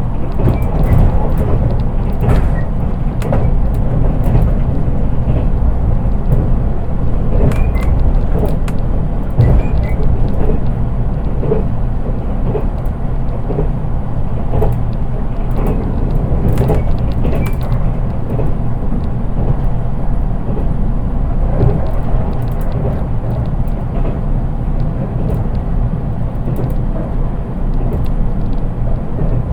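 Interior running noise of a JR East 183 series electric train, heard from inside its unpowered KuHa driving trailer car: a steady low rumble of wheels on rail with frequent clicks and knocks. Almost no traction motor sound comes through, which makes the running sound plain.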